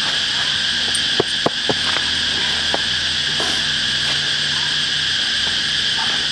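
Steady, high-pitched chorus of insects with no break, with a few light clicks between about one and three seconds in.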